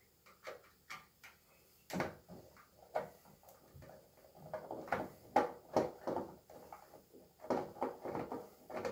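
A sheet-metal cover being unbolted and lifted off a planer's feed roller chain housing by hand: a string of small metallic clicks, clinks and light knocks, busier from about halfway through.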